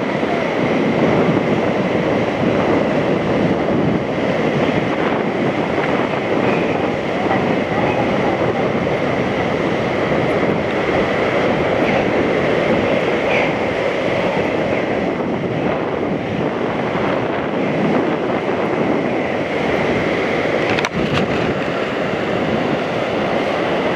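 Zip-line trolley pulleys rolling along a steel cable: a steady, dense rumble with a faint high whine, and wind rushing over the microphone.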